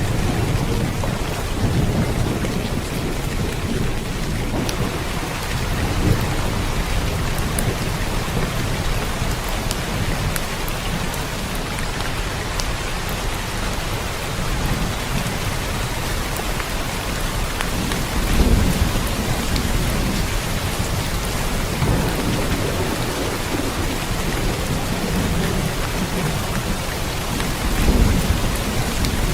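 Steady rain falling, a dense even hiss, with low rumbles of thunder swelling a little past halfway and again near the end.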